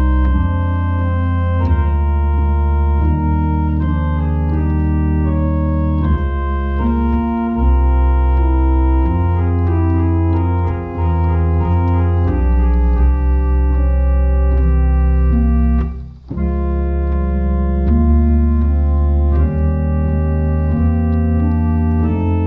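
1871 Walker pipe organ being played in full, sustained chords over long-held deep bass notes, the harmony shifting every second or two. The sound breaks off briefly about two-thirds of the way through, then resumes.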